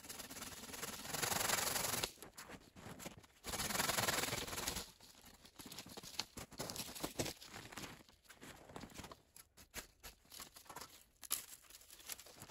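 Wooden branches and poles scraping and rustling as they are handled in snow: two longer scraping noises in the first five seconds, then lighter rustles and small clicks of twigs.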